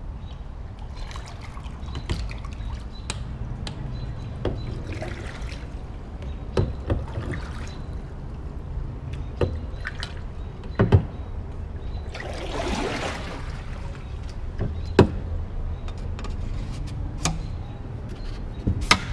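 Kayak paddling: water trickling and splashing off the paddle blade, with scattered sharp knocks of the paddle against the kayak hull and a longer splash about two-thirds of the way through. A low steady rumble runs underneath.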